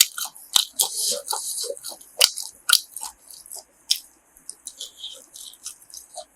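Close-up chewing of chewy grilled pork: wet mouth clicks and smacks coming at an uneven rhythm.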